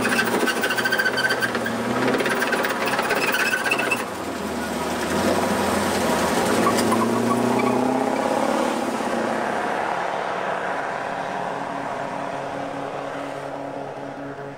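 CV90 tracked infantry fighting vehicle driving through a muddy stream: its diesel engine running under load, with tracks clattering and squealing over the first few seconds. The engine pitch rises about seven seconds in, then the sound fades steadily as the vehicle moves away.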